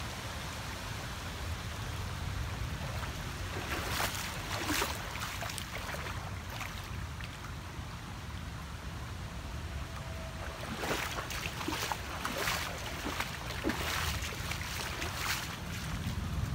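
Footsteps sloshing and splashing through shin-deep floodwater, in a run of steps about four seconds in and again from about eleven to fifteen seconds, over a steady wash of water noise.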